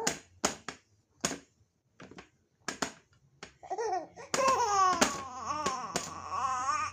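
A baby laughing in short, quick bursts, then giving a longer high-pitched vocal sound whose pitch wobbles up and down from about four seconds in.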